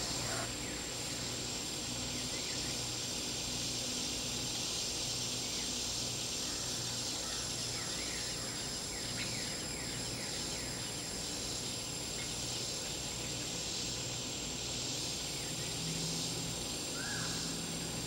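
Insects chirring steadily, with a few short, faint bird chirps.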